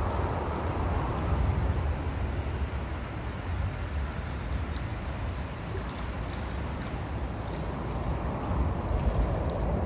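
Outdoor shoreline ambience: a low rumble of wind buffeting the microphone over a steady wash of noise, with faint scattered ticks.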